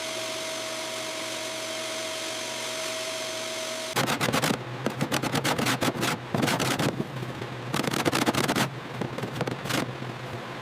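Steady machine hiss with one constant whine for about four seconds, then a long stretch of rapid rattling and grinding in uneven spells over a low steady hum.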